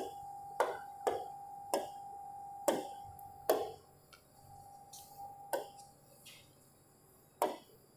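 Fingertip taps on an interactive touchscreen display while typing on its on-screen keyboard: about eight sharp taps, irregularly spaced half a second to two seconds apart.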